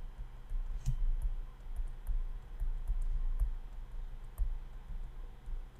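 Stylus tapping and scratching on a tablet screen during handwriting: an irregular run of soft knocks and clicks.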